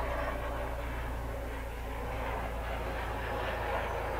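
Steady low drone of a distant engine.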